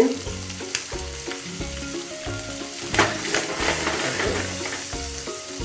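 Lamb T-bone chop sizzling as it sears in a hot pan with butter and olive oil, with a louder burst of crackling about three seconds in. Background music with sustained bass notes plays underneath.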